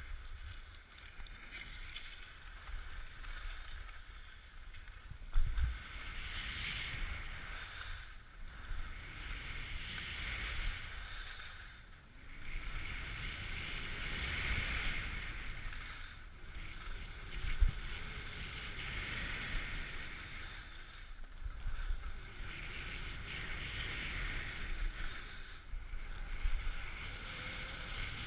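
Skis carving down a groomed snow run: a scraping hiss of the edges on firm snow that swells and fades with each turn, over wind buffeting the microphone, with two brief loud wind bumps.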